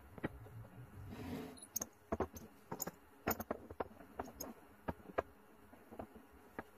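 Steel Forstner bits clicking and clinking as they are handled and set down one by one on a wooden workbench: a scatter of short sharp taps, with a brief scraping rustle about a second in.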